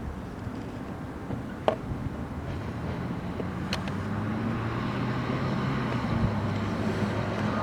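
Low, steady engine drone of a nearby vehicle that grows louder in the second half, with a sharp click a couple of seconds in and a fainter one about two seconds later.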